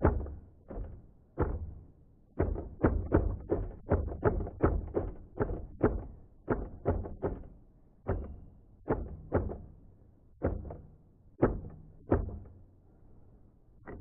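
Remington Noiseless No. 6 typewriter being typed on: an irregular run of dull key strikes, several a second, with short pauses between bursts.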